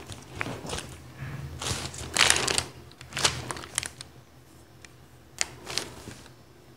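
Pattern paper rustling under the hands and a pen scratching marks on it, in short irregular bursts, the loudest a little after two seconds in.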